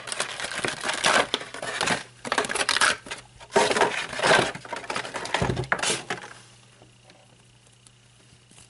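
Plastic toy packaging crinkling and crackling in irregular handling bursts as two small squishy toy figures are pulled out of it, stopping about six seconds in.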